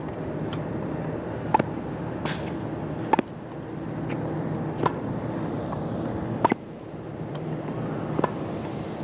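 Tennis racket striking the ball on alternating forehand and backhand volleys: four sharp pops about every second and a half, with fainter knocks of the ball between them, over a steady low hum.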